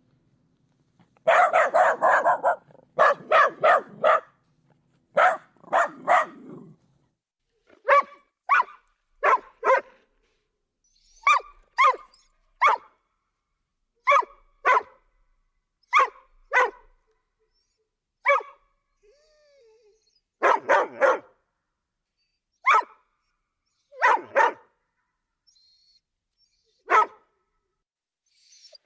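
Dog barking: a fast run of loud barks in the first few seconds, then short single and double barks every second or two.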